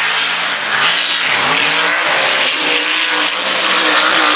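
Mega truck's race engine revving hard at full throttle. Its pitch drops and climbs again several times as the throttle comes off and goes back on.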